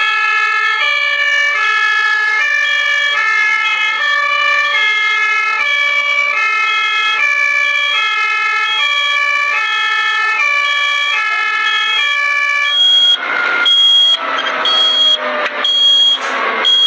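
German emergency ambulance two-tone siren, alternating steadily between a high and a low pitch, each held for under a second. About thirteen seconds in the siren gives way to a louder rush of noise with a high beep repeating on and off.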